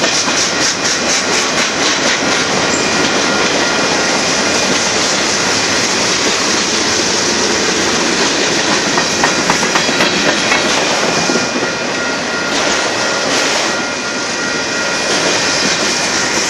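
Union Pacific manifest freight train's cars rolling past: a steady loud rumble of steel wheels on rail with clickety-clack over the rail joints, the sharpest clicks bunched about nine to ten seconds in.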